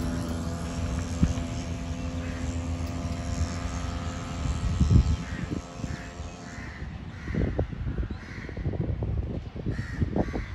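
Crows cawing repeatedly, a caw roughly every half second to second through the second half, over wind buffeting the microphone. A low steady engine hum fades away in the first few seconds.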